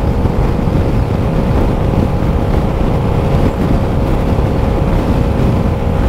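Zontes M125 scooter's 125 cc single-cylinder engine held at full throttle up a steep hill at highway speed, a steady engine drone under heavy wind rushing over the microphone.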